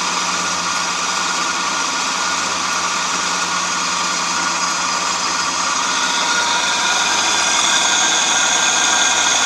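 Vollmer bandsaw blade sharpener running with no grinding wheel fitted: its electric motor and feed mechanism make a steady whine with several fixed tones, no grinding.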